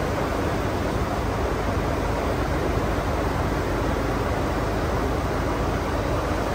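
Steady rushing flight-deck noise of a Boeing 747-400 in flight: airflow and air-conditioning hiss, even and unchanging.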